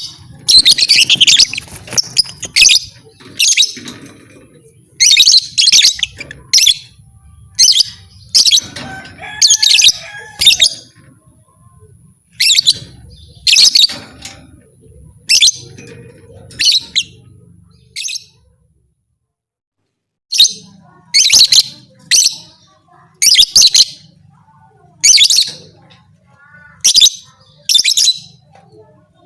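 Lovebird giving loud, shrill chattering bursts, each under half a second, about one a second. All sound drops out for about two seconds past the middle, then the bursts resume.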